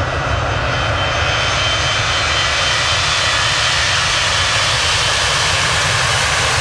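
Airbus A320's CFM56 turbofans at takeoff thrust as the jet climbs away: a steady, loud jet roar with a deep rumble underneath.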